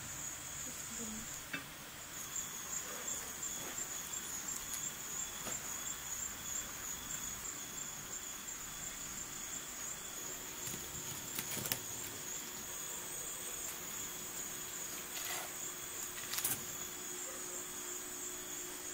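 Crickets chirring in a steady high, continuous trill. Two sharp clicks stand out, about twelve and sixteen seconds in.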